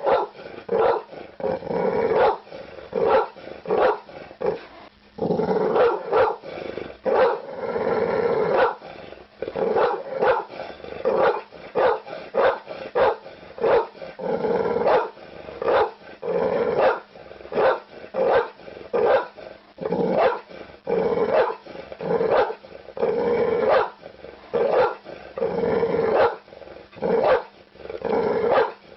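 A dog barking over and over, roughly one bark a second, with a few longer, drawn-out sounds in between.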